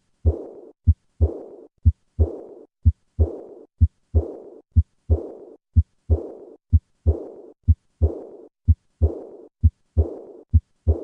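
Heart sounds of aortic regurgitation, at about one beat a second. Each beat has a short low first sound, then a second sound followed by a murmur that starts with it and fades away before the next beat: the early diastolic decrescendo murmur of aortic regurgitation.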